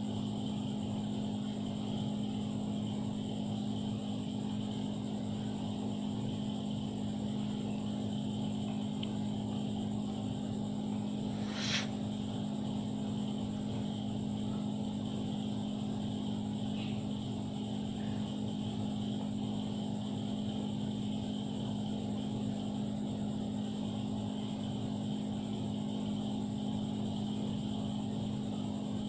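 A steady machine hum, pitched low with a faint high whine above it, holding constant throughout. A single sharp click comes a little under halfway through.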